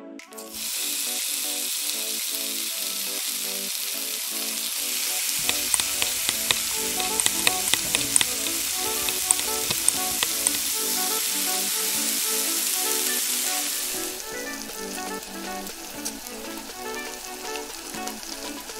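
Chopped aromatics dropped into hot oil in a miniature clay pot, sizzling with scattered crackling pops as they are stirred. About three quarters of the way through the sizzle dies down to a softer fry.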